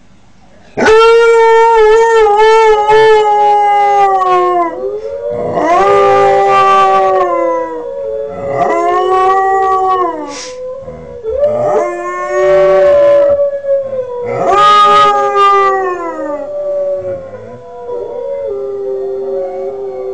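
Young Northern Inuit Dog howling: a run of about five long howls, each a few seconds, wavering and sliding in pitch, starting abruptly about a second in.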